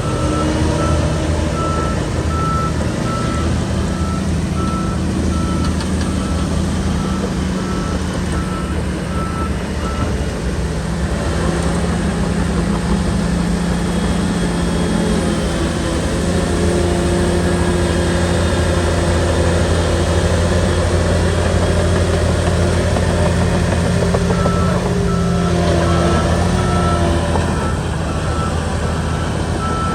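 SHANTUI bulldozer's diesel engine running steadily under load, its pitch shifting now and then as the machine works. A reversing alarm beeps repeatedly during the first third and starts again near the end, as the machine backs up.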